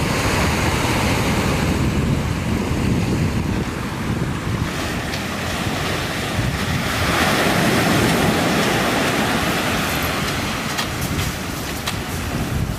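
Surf breaking and washing onto a sandy beach, with wind buffeting the microphone; the wash swells up about seven seconds in.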